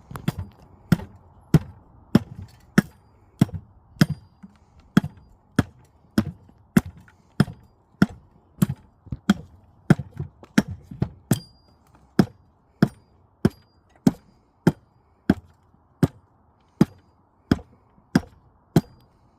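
Hand-held bowl adze chopping into the square edge of a wooden fence-post offcut in short strokes drawn towards the user. It is a steady rhythm of sharp cuts, about three every two seconds, rounding the edge into a curve.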